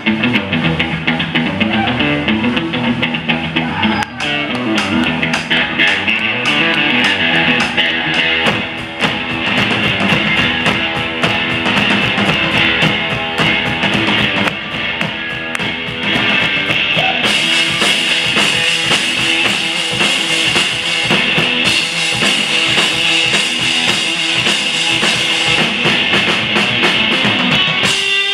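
Live rock band playing loud: an electric guitar riff with a drum kit. The drumming gets denser after the first several seconds, with cymbals washing over it from about halfway through.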